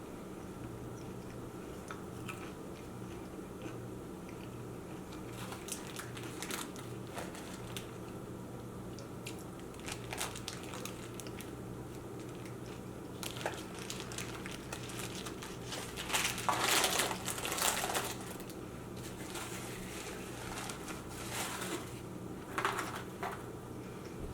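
Close-miked eating sounds: a person chewing and biting Chick-fil-A waffle fries and sandwich, with scattered small mouth clicks. There are louder bursts of crunching and crinkling about sixteen to eighteen seconds in and again near the end, over a steady low hum.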